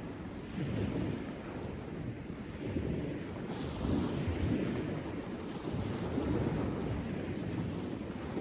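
Wind buffeting the microphone: a low, noisy rumble that rises and falls in gusts.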